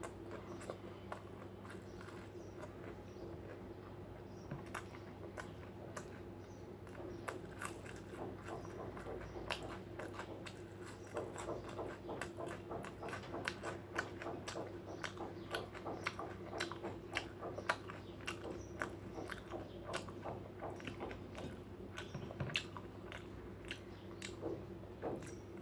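Close-miked chewing and biting of food, many small wet clicks and smacks that get busier after the first several seconds, over a steady low hum.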